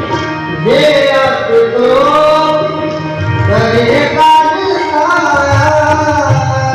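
Sikh kirtan: a man's voice sings a hymn in long, gliding held notes over steady harmonium tones and tabla strokes. The singing comes in just under a second in.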